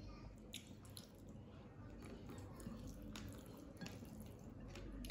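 Faint wet clicks and smacks of eating by hand: fingers mixing rice and fish on a plate, and chewing. A handful of short sharp clicks are scattered through.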